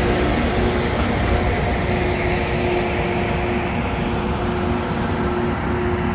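Loram rail grinder train rolling past and drawing away: its diesel engines run with a steady low drone under the rumble of the train on the rails. The higher-pitched noise dims about a second and a half in as the train moves off.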